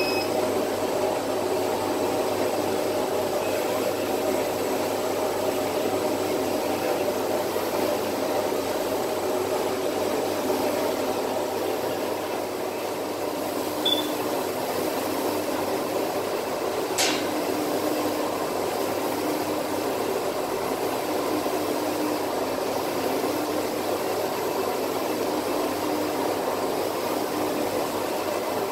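UV flatbed printer running: a steady fan-like rush, with a faint low hum that comes and goes about every second and a half as the print carriage sweeps back and forth. A short high beep about halfway through, and a sharp click a few seconds later.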